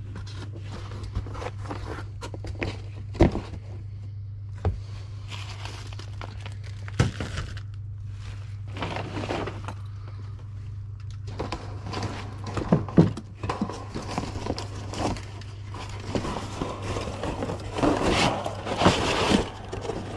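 A person clambering through an attic: irregular knocks, thumps and scrapes with rustling, busiest in the second half, over a steady low hum.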